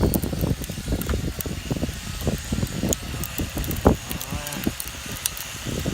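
Wind buffeting the microphone in irregular low rumbling gusts, with the faint steady high whine of a small quadcopter drone's motors.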